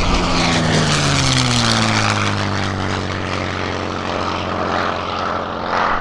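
P-51 Mustang's Packard Merlin V-12 and propeller flying past, the engine tone dropping in pitch as it passes and then holding steady as it moves away.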